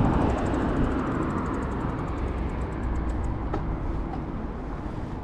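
Steady rumble of wind and city traffic on the microphone from a moving bicycle, with the rear hub's freewheel ticking quickly as the bike coasts. The ticking dies away about three seconds in.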